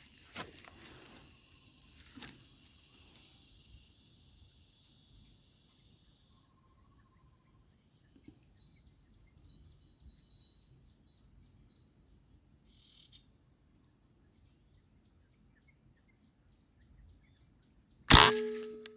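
Insects keep up a steady high-pitched buzz, with a faint short bird call about a third of the way in. Near the end an air rifle fires once: a sudden loud crack that dies away within a second.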